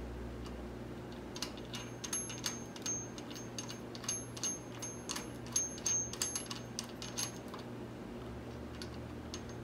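Light metallic clicks and short ringing clinks from about a second and a half in to about seven and a half seconds, as an aluminium brake-rod clevis is spun by hand onto the threaded pushrod of an ATV rear brake master cylinder. A steady low hum runs underneath.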